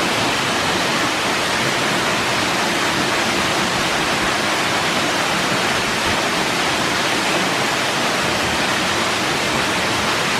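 Waterfall plunging into a pool: a loud, steady rush of falling water.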